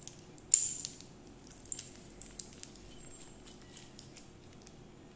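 Metal tools being handled and set down on a table: one sharp clack about half a second in, then a few lighter clicks and clinks.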